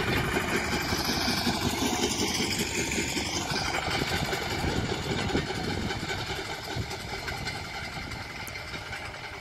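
Small engine of a railway motor inspection trolley running as it travels along the track, fading steadily as it moves away.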